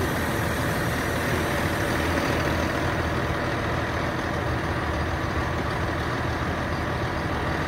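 A boom truck's engine idling steadily close by, an even low running hum that neither rises nor falls.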